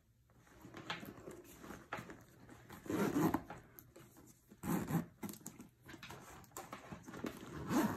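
A red leather Fossil Rachel satchel being handled as its metal top zipper is pulled closed. The sound is rustling and rubbing, with a few louder bursts about three seconds in, about five seconds in and near the end.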